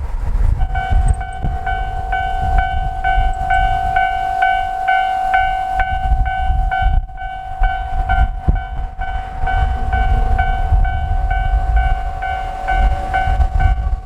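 Japanese railway level-crossing warning bell ringing: a steady electronic clanging tone repeating about two strokes a second, the signal that a train is approaching the crossing. A low rumble runs underneath.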